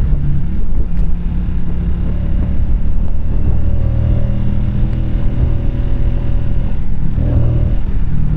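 Keeway K-Light 125's small air-cooled V-twin engine running under way, heard from the rider's seat with a steady note. The note changes briefly about seven seconds in, then settles again.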